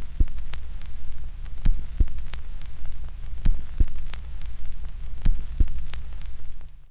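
Dark horror-film sound design: a steady low drone with scattered static crackle. A pair of low thumps comes about every two seconds, like a slow heartbeat. It all fades out just before the end.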